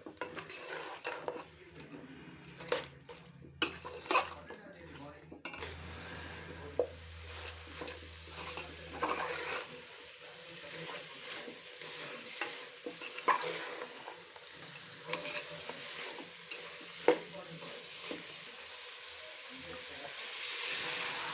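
A metal spoon clinking and scraping against a cooking pot, then from about five seconds in a steady sizzle of food frying in hot oil as it is stirred, with occasional knocks of the spoon on the pot.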